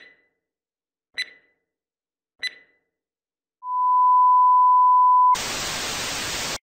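Electronic sound effect: three short high beeps about a second and a quarter apart, then a loud steady pure tone held for under two seconds, which switches abruptly to a hiss of static that cuts off suddenly.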